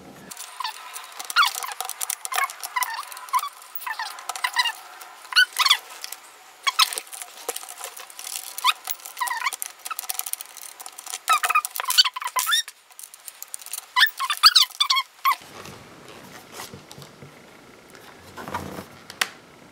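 Scope mounting rings squeaking and scraping against the airsoft rifle's top rail as the scope is slid back along it, with scattered small clicks. About fifteen seconds in it turns to softer, lower handling rustle.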